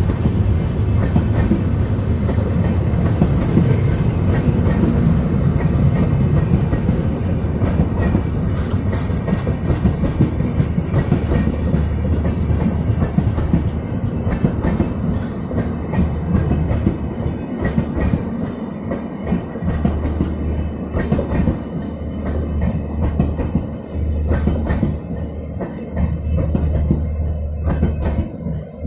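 Express train's passenger coaches running through a station at full speed without stopping: a continuous heavy rumble with rapid clattering of wheels over the rail joints, easing slightly over the second half.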